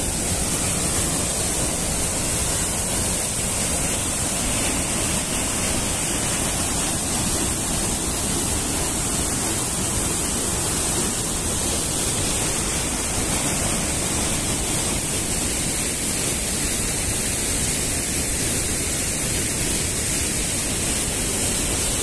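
Steady rush of running water from the waterfall and its stream, even and unbroken.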